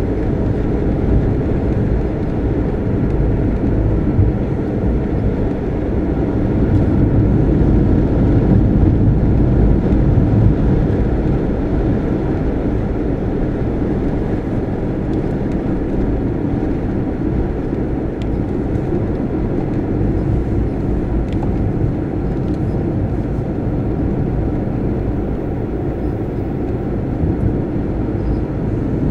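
Car driving at a steady speed: a continuous low rumble of engine and tyre noise, swelling a little about seven to eleven seconds in.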